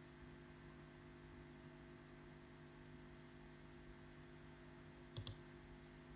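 Near silence with a steady low electrical hum, broken about five seconds in by a quick pair of clicks from a computer mouse.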